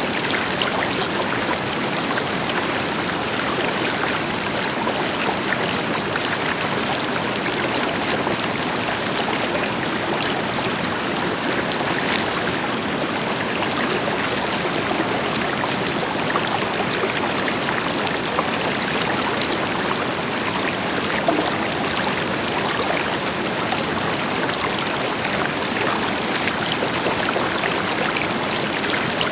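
River water flowing steadily over rocks, a continuous rushing and splashing with small bright trickles, over the deeper hiss of a distant waterfall.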